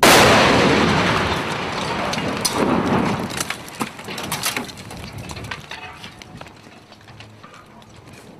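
An explosive demolition charge detonates with a sudden loud blast. A long rumble follows, fading over several seconds, with scattered sharp cracks through the first few seconds.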